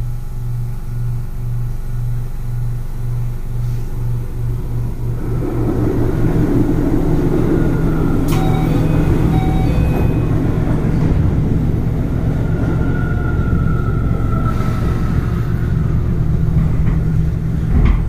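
Inside a Keio 8000 series train with Hitachi IGBT-VVVF traction equipment: a pulsing low hum while the train stands, then about five seconds in it pulls away, with wheels rumbling on the rails and the inverter and traction motors whining.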